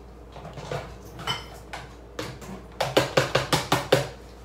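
Plastic dishwasher containers and dishes clattering as they are handled and knocked together. There are a few separate knocks, then a quick run of about seven about three seconds in.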